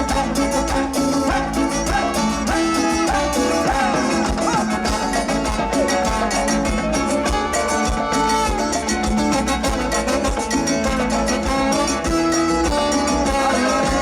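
Live band playing Latin dance music, an instrumental passage with a steady beat.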